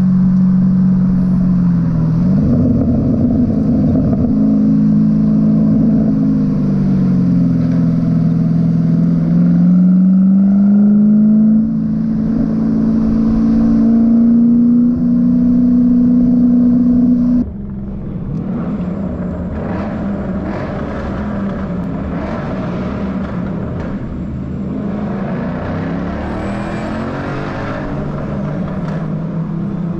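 Ford Mustang Boss 302's 5.0-litre V8 running through loud aftermarket exhausts under load, its note rising and falling with the revs. A little past halfway it drops abruptly to a quieter, steadier running sound.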